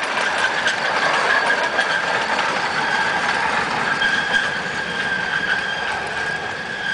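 One-third-scale steam train's passenger cars rolling through a curve, heard from aboard: a steady high wheel squeal over running noise and rapid clicking of the wheels on the track, the clicks thickest in the first couple of seconds.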